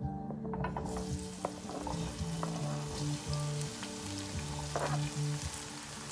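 Courgette frying in hot olive oil in a pan, a steady sizzle that starts up about a second in, with a few short clicks as it is stirred.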